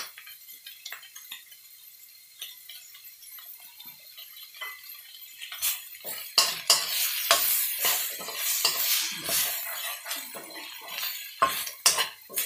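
Stir-frying in a wok: a metal spoon scraping and clanking against the pan as the food is tossed, over a light sizzle. The first five seconds hold only light scattered clicks, and the stirring grows loud and busy about six seconds in.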